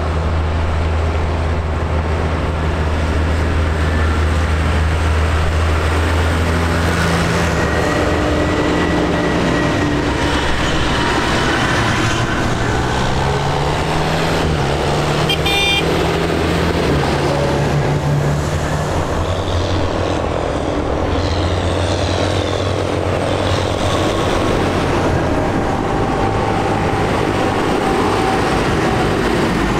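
A line of diesel tractors driving past one after another, their engines running steadily, with the pitch rising and falling as each one approaches and goes by. A brief high toot comes about halfway through.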